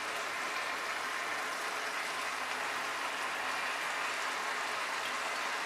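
Thick Malabar spinach and fish-head curry sizzling and bubbling steadily in a pan over a high flame as its gravy cooks down.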